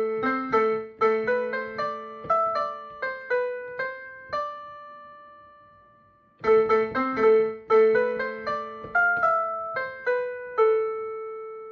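Electric piano melody: a short run of notes ending on a long held note that fades, then the same phrase played again.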